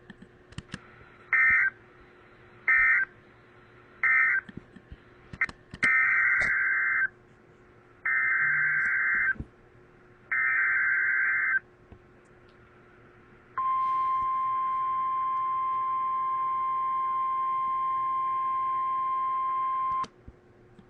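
Emergency Alert System data bursts and alert tone on a weather-radio broadcast: three short warbling digital bursts that end one alert message, then three longer warbling bursts that carry the header of the next alert, followed by the steady weather-radio alert tone held for about six and a half seconds.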